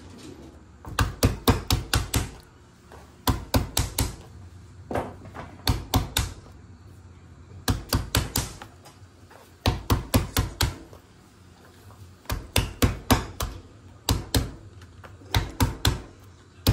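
Long green beans being smashed with a metal meat tenderizer on a plastic cutting board: about eight bursts of five or six quick blows, roughly five a second, with short pauses between.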